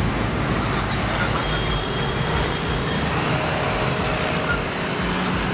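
Road traffic: a steady din of passing vehicle engines and tyres.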